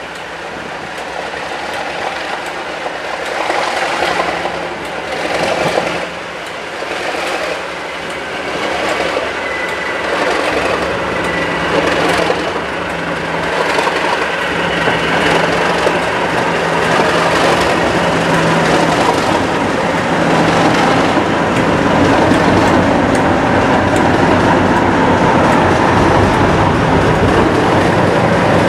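English Electric Class 37 diesel locomotive D6729 running as it draws up close, its V12 engine growing steadily louder, with knocks from the wheels and rails in the first few seconds.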